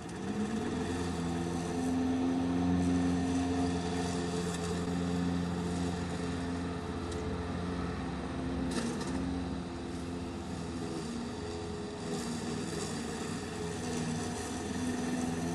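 Gas push lawn mower's small engine running steadily as it cuts tall grass, its pitch wavering a little with the load.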